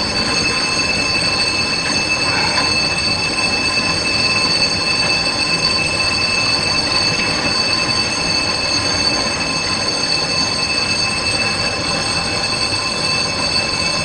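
A mass of flood debris (wrecked wooden houses, roofs and timber) grinding and crunching together as the water pushes it along: a loud, unbroken din with a steady high squeal running through it.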